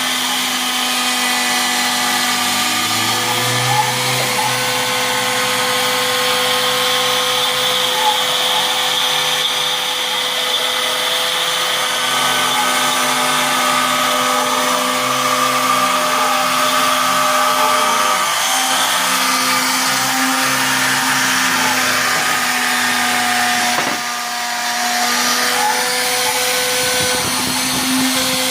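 Straight router working as the spindle of a home-built CNC machine, running steadily while the machine's motors move the axes, giving steady tones that step and glide in pitch. The sound dips briefly in level near the end.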